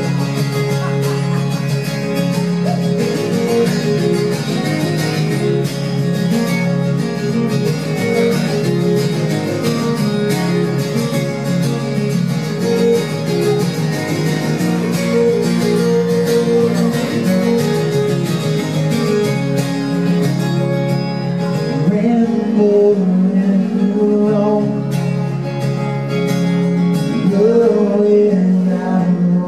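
Live country-style band playing an instrumental break, with guitars to the fore.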